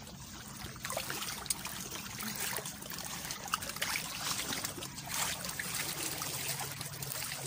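Shallow seawater lapping and trickling among shoreline rocks, with many small splashes and drips.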